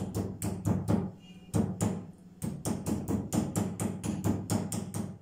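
Wooden meat mallet pounding raw chicken breast slices on a wooden cutting board to flatten them: dull thuds at about four a second, in three runs with short pauses between.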